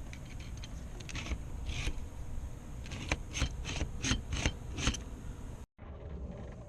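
Hands fitting fuel pump parts: rubbing and scraping, with a quick run of about six sharp clicks between three and five seconds in.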